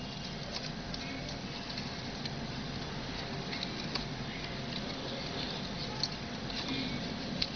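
Strip of palm leaf being folded and pulled tight by fingers, giving light crackles and scattered small clicks at irregular moments over a steady background hiss.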